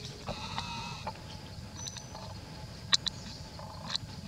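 A short pitched animal call, about a second long, near the start, then a few sharp clicks, the loudest about three seconds in, over a steady high drone.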